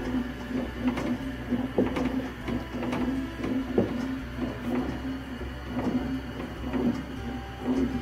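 Wooden spatula stirring a thick mash of barley, lentils and rice in a metal pot, scraping and knocking against the pot with each stroke.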